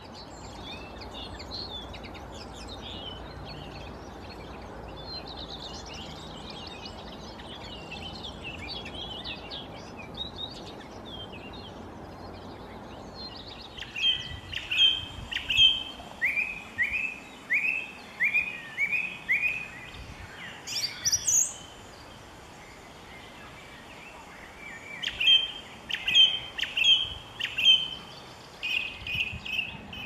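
A common linnet sings a soft, fast, twittering warble. About fourteen seconds in, a song thrush takes over with louder phrases, each note repeated several times in quick succession; it pauses briefly and then resumes near the end.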